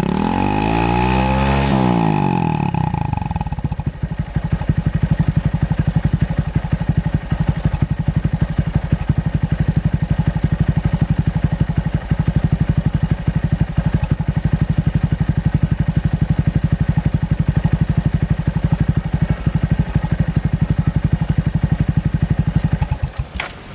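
Honda Monkey 125's single-cylinder engine through a Takegawa P-shooter aftermarket exhaust: one quick blip of the throttle, rising and falling, then a steady idle. The engine is shut off near the end.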